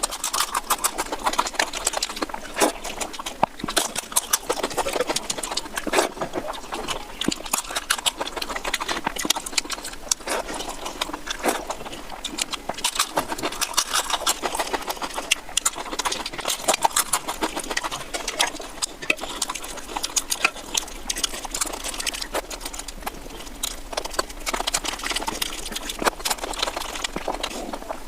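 Close-up eating sounds: wet chewing and mouth smacking over a mouthful of oily mutton curry and rice, a dense run of irregular clicks.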